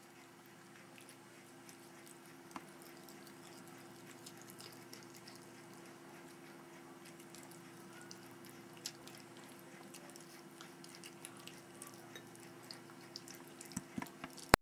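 Cat chewing pieces of cat food from a glass bowl: faint crunching and small clicks, coming more often and a little louder near the end, over a steady low hum.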